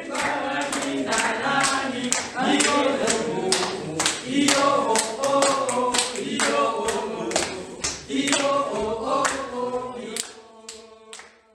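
A group of voices singing together with steady, rhythmic hand clapping, fading out near the end.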